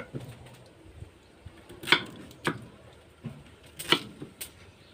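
Kitchen knife chopping a peeled root vegetable on a wooden cutting board: a handful of sharp, separate knocks of the blade striking the board, the loudest about two and four seconds in.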